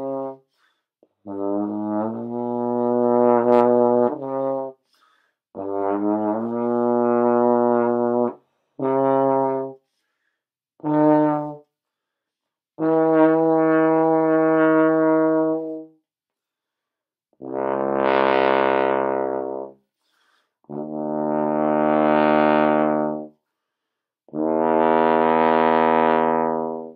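Trombone played solo: a string of long, low held notes, a few seconds each, with short breaks for breath between them. The last three notes are lower and fuller, each swelling up and dying away.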